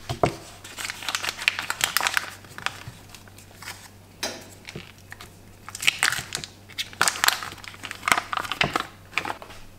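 Paper wrapper of a block of butter crinkling and crackling as it is unfolded by hand. It comes in two busy bouts with a quieter lull around the middle.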